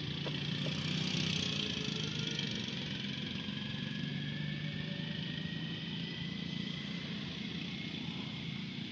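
A small engine running steadily with a low hum, with a faint high hiss above it.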